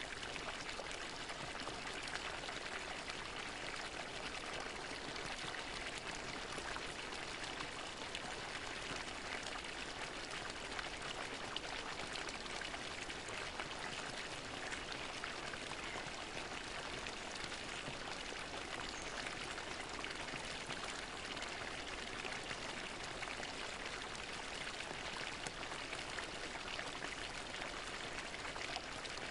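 Fountain water splashing and pouring steadily into its basin, an even rush with fine droplet patter.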